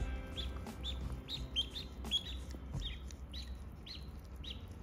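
Ducklings peeping: a string of short, high calls, each falling in pitch, two or three a second.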